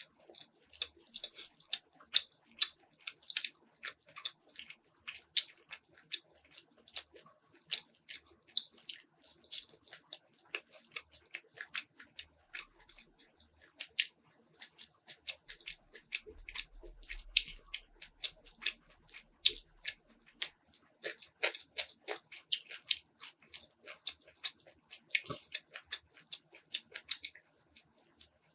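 Close-miked chewing of crunchy food, with many sharp, irregular crunches and mouth clicks.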